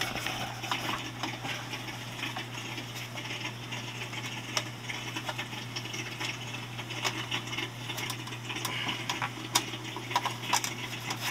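Scattered light clicks and knocks from hands working on a plastic Eheim 2217 canister filter as it is shut down and its lid worked at, over a steady low hum.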